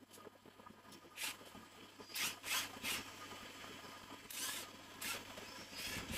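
A series of short scraping strokes, about seven in six seconds, irregularly spaced, from hand work on truck transmission parts.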